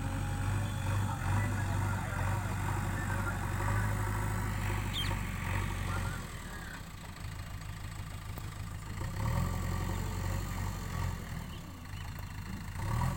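Diesel engine of a JCB 3DX backhoe loader running steadily, easing off in level for a few seconds around the middle before picking up again.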